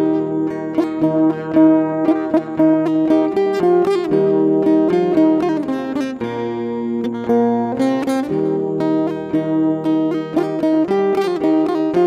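Background music of a plucked acoustic guitar playing a steady, rhythmic pattern of chords and notes.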